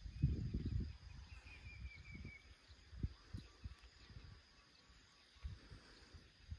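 Wind buffeting the microphone in gusty low rumbles, strongest in the first second, then in scattered puffs. A little over a second in, a bird gives a short trill of quick repeated notes.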